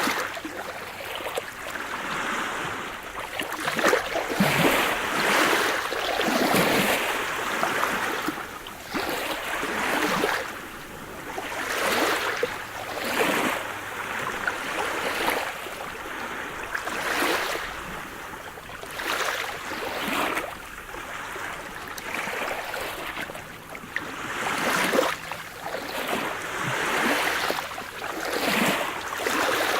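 Sea surf: waves breaking and washing in, swelling and fading again every second or two.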